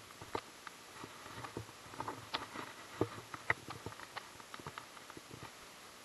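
Irregular clicks and light knocks from a baitcasting reel handled close up, fingers working its handle.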